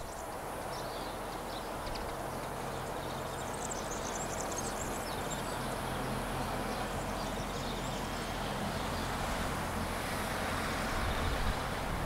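Outdoor ambience with a steady low engine hum, under faint high chirps.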